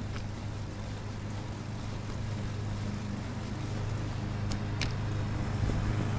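Steady low hum and wind and tyre noise of a bicycle rolling along a paved road, slowly getting louder, with two sharp clicks close together about two thirds of the way in.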